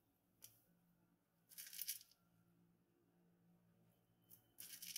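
Parchment paper crinkling in short crisp rustles as a hand presses raw cookie dough balls down on a lined baking tray: a brief one about half a second in, a longer one around the two-second mark, and two more near the end.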